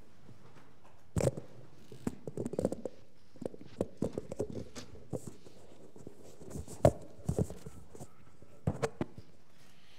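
Handling noise on a headset microphone as it is untangled and fitted over the ear: irregular clicks, knocks and rustles of the cable and mic against hands and clothing, in clusters, with the sharpest knock about seven seconds in.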